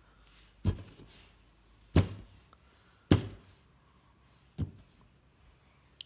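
Four dull knocks, a second or so apart, as an acrylic stamping block carrying a rubber wave stamp is tapped lightly to add more ink.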